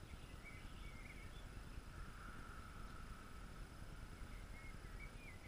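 Faint outdoor garden ambience with a low steady rumble, and a small bird's faint twittering twice, once near the start and again near the end. A faint steady drone rises and fades through the middle.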